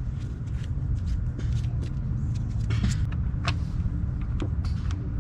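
An engine running steadily with a low rumble, with scattered small clicks and knocks over it.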